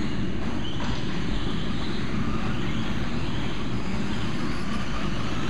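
Electric radio-controlled short-course buggies racing on a dirt track, a steady wash of motor and tyre noise.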